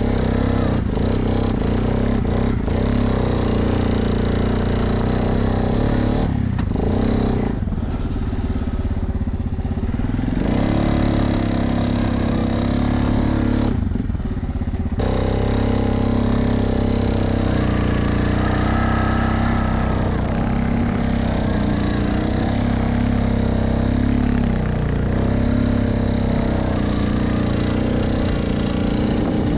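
ATV engine running under throttle while the machine is ridden through snow, the engine note easing off briefly about a quarter of the way in and again about halfway before picking back up.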